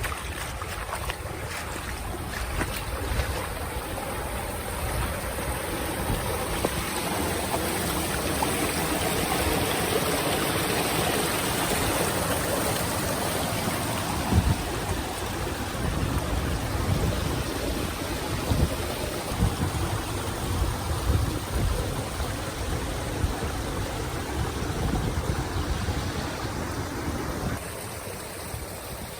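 Running water, a steady rushing, with wind buffeting the microphone in low gusts. It eases slightly near the end.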